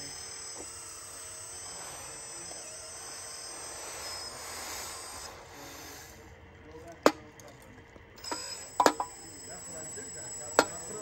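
A 1/14 scale RC dump truck tipping its bed: a steady high-pitched whine from the tipping mechanism with gravel hissing as it slides out, both stopping about six seconds in, followed by several sharp knocks.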